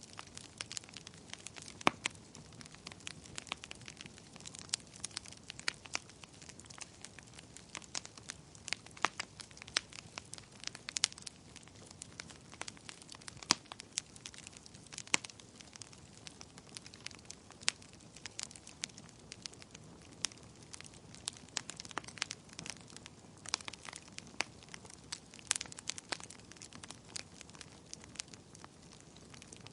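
Wood fire crackling in a fireplace: many irregular sharp pops and snaps, several a second, over a soft low hiss of burning.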